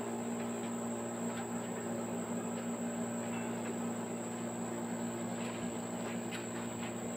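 Rack-and-pinion construction hoist (jack-up manlift) running: a steady electric motor hum with a thin high whine above it and a few faint clicks.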